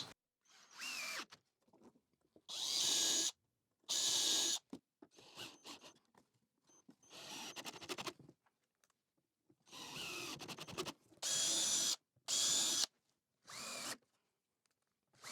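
Power drill driving screws into construction timber in a series of short runs, about nine in all, each under a second and separated by pauses, the motor pitch rising and falling within some runs.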